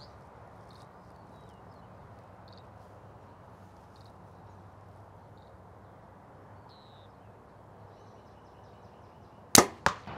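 Quiet outdoor background with a few faint high chirps, then near the end the sharp crack of a Mathews V3X 29 compound bow being shot, followed by a second sharp crack a moment later.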